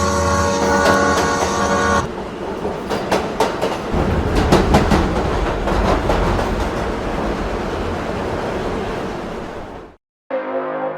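Train horn sounding a steady chord for the first two seconds, then a passing train: rumble with a rapid clatter of wheels over rail joints that fades away near the end. Music begins just after it dies out.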